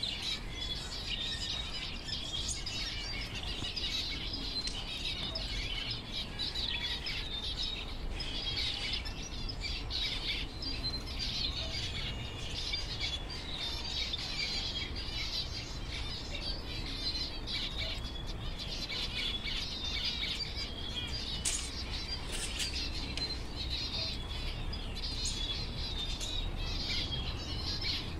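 Small birds chirping and twittering without a break, several at once, with short high whistled notes among the chirps.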